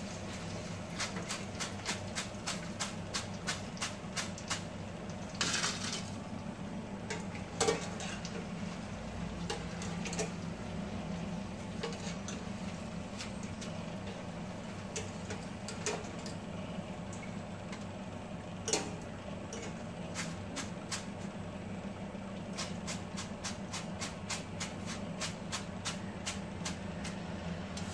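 Wire mesh skimmer clinking and scraping against a steel kadai as fried raw-banana chips are scooped out of the oil, many sharp clicks over a steady low hum. The oil has stopped sizzling, the sign that the chips have lost their water and turned crisp.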